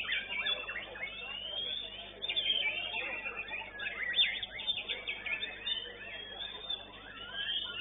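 White-rumped shamas (murai batu) singing: a dense, continuous run of fast whistled notes, chirps and rising and falling glides.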